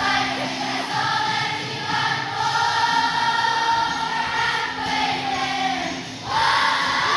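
Children's choir singing, holding one long note for several seconds and then starting a new phrase near the end.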